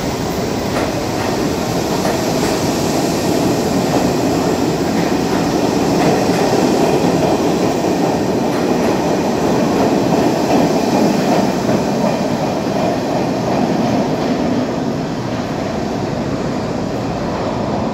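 R68A subway train accelerating out of an underground station, its cars rolling past close by: a loud, steady rumble of steel wheels on rail with clickety-clack over the rail joints, easing off slightly near the end as the last car pulls away.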